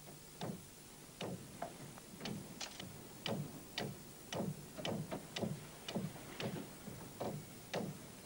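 Hammer blows on the timber of a wooden boat hull under construction: about two sharp strikes a second, slightly irregular and sometimes in quick pairs, each with a short ringing tail.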